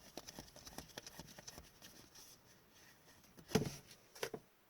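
Trading cards being handled and flipped through: soft rustling and light clicks of card stock, with two louder handling sounds near the end.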